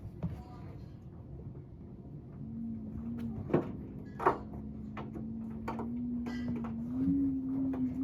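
LG washing machine starting a spin: a steady motor whine comes in about two and a half seconds in and steps up in pitch near the end as the drum speeds up. Two sharp knocks sound around three and a half and four seconds in.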